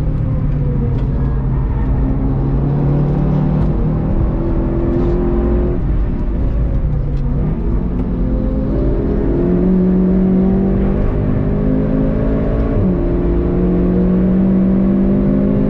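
Onboard sound of a VW Golf 7.5 GTI TCR's engine pulling hard through the gears, the revs climbing and dropping back at a few gear changes, over steady road and tyre noise inside the cabin.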